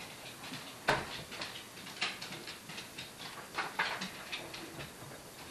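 Plastic and metal stroller parts being handled during assembly: a sharp knock about a second in, then scattered light clicks, taps and rustles.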